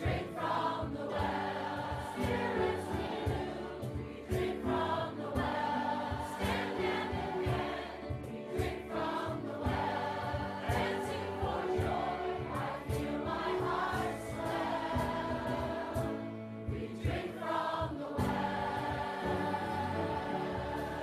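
Choir singing a hymn.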